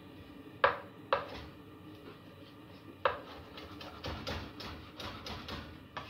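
Three sharp knocks of kitchen utensils or pans being handled, the first two close together and the third about two seconds later, then about two seconds of quick, irregular clicking and crackling.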